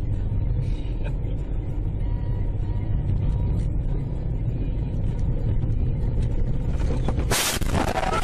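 Steady low rumble of a moving car's engine and tyres, then about seven seconds in a sudden harsh crash with breaking glass.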